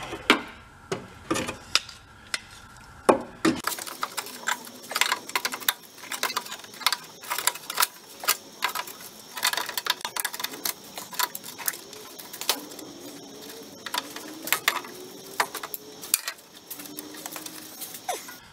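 Irregular small metallic clicks and clacks of adjustable pliers gripping and working a fitting under a truck's front end, with a few faint squeaks in the second half.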